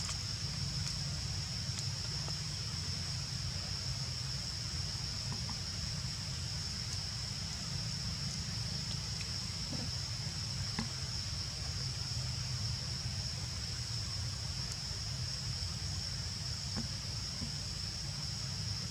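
Steady outdoor background noise: a constant low rumble and a steady high-pitched hum, with a few faint scattered clicks.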